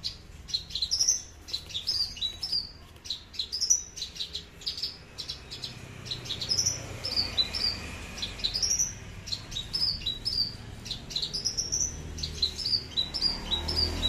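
Caged branjangan (Javan bush lark) singing a long, unbroken song of quick high chirps, sharp clicking notes and short slurred whistles that sweep up and down.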